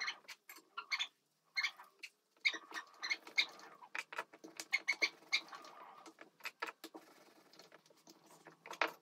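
Aloo paratha cooking on a hot tawa: the thin coat of oil sizzling with irregular crackles and pops.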